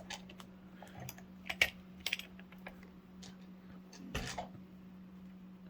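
Scattered light clicks and taps of a Master Lock 410 lockout padlock and its pick being handled just after it has been picked open, the loudest about one and a half and four seconds in, over a steady low hum.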